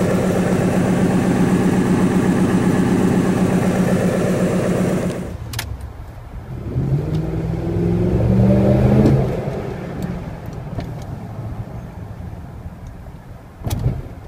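2004 Ford F-150's 5.4L 3-valve Triton V8 with a Corsa cat-back exhaust, running steadily and loud at the tailpipe for about five seconds. It then cuts to the sound inside the cab, where the engine's pitch rises as the truck accelerates for a couple of seconds, then eases off to a quieter cruise.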